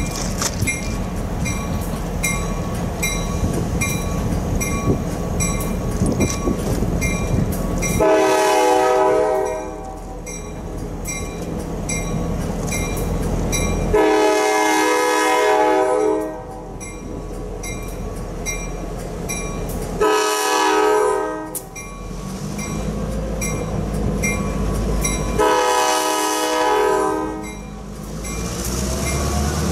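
EMD GP38-2 diesel locomotive sounding its horn in the grade-crossing pattern: two long blasts, a short one, then a long one. Its bell rings steadily and its diesel engine rumbles underneath, the rumble growing louder near the end as the locomotive draws close.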